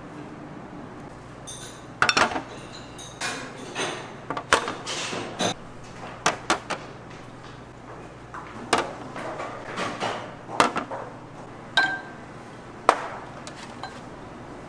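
Dishes and utensils clinking and knocking irregularly, about a dozen sharp clicks, a few with a short ringing tone, over a low steady hum.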